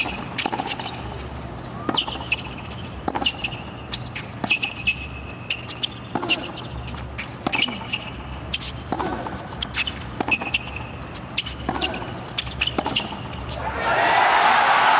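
Tennis rally on a hard court: the ball is struck back and forth with racquets and bounces, at irregular intervals about a second apart, with short sneaker squeaks on the court surface. Near the end a crowd breaks into loud cheering and applause as the point ends.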